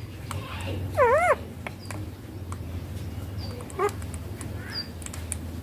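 Rose-ringed (ringneck) parakeet calling: a short wavering whistle that swoops up and down about a second in, then a brief chirp near four seconds, with faint high peeps every second and a half or so. A steady low hum runs underneath.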